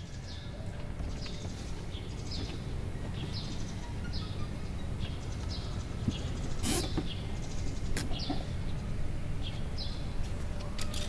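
A bird chirping repeatedly in the background, short falling chirps about twice a second, over a low steady rumble. A few sharp clicks break in, two a little past halfway and more near the end.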